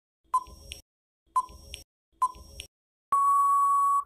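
Quiz countdown timer sound effect: three short beeps about a second apart, then one long steady beep about three seconds in, marking that time has run out.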